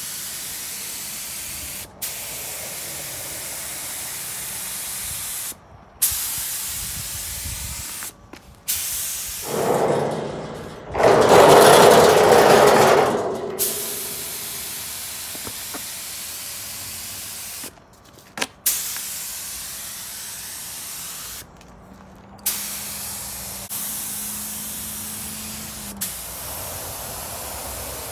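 Gravity-feed air spray gun hissing as it sprays high-build primer onto a steel tool cart, with short breaks wherever the trigger is let go. Near the middle a louder, lower rushing noise lasts about four seconds.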